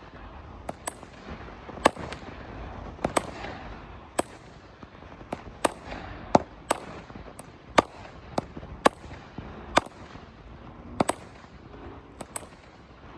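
25-shot, 200-gram consumer firework cake (Outlaw Fireworks' Do It For The Gram) firing shot after shot. It gives a sharp bang roughly every half second to a second, with a steady hiss between the bangs.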